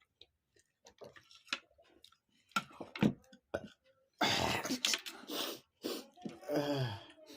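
Mouth sounds of people eating: scattered clicks and smacks, a loud breathy rush about four seconds in, and a short vocal sound falling in pitch near the end.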